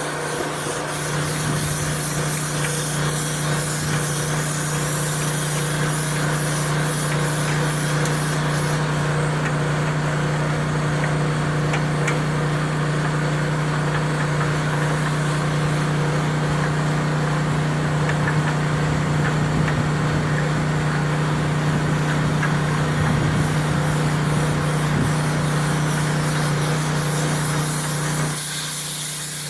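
Air compressor running steadily, with air hissing and the spinning air hose rubbing inside a dryer vent duct as it is worked through to blow the lint out.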